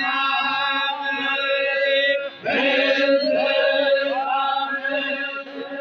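Men's voices chanting together in long, steady held notes, with a short break about two and a half seconds in: Balochi chogan singing.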